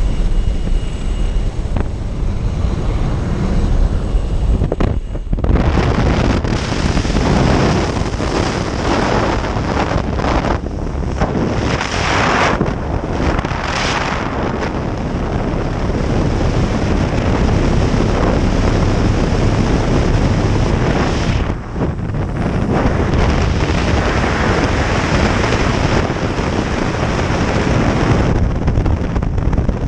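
Rushing wind buffeting the camera microphone, first at the open door of a skydiving jump plane with its engine running, then in freefall. The roar is loud and even, with a brief dip about five seconds in and again around twenty-one seconds.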